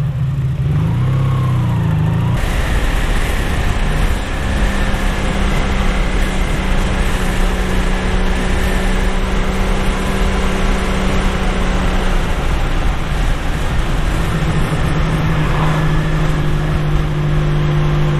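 Honda VF750F Interceptor's V4 engine running while riding, under steady wind noise on the helmet microphone. The engine note steps lower about three-quarters of the way through.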